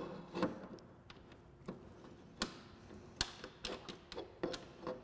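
Light, irregular clicks and taps of a bolt and rack bracket being handled and fitted onto a snowmobile's tunnel, about a dozen sharp ticks spread across a few seconds.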